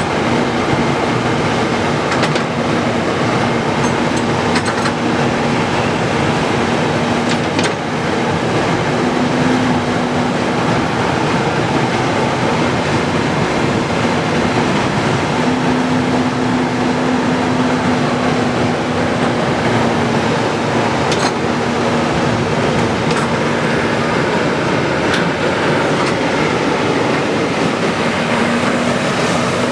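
Excavator running and working: a loud, steady machine noise with a low hum that swells at times, around ten seconds in, for a few seconds past the middle, and near the end, plus a few scattered sharp clanks.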